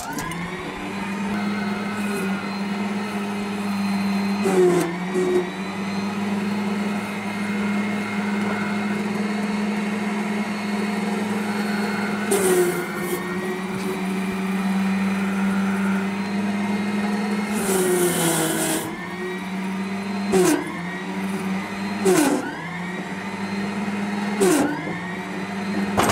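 Electric micro loader's motor whining steadily under operation, its pitch sagging and recovering several times as the machine is driven and worked. Two short hissing bursts come about halfway and about two-thirds of the way through.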